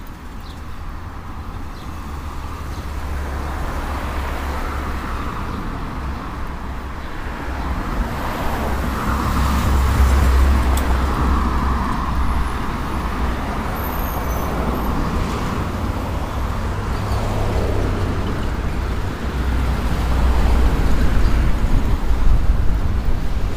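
Road traffic: cars passing along the street, swelling as a car goes by about ten seconds in and again near the end, over a steady low rumble.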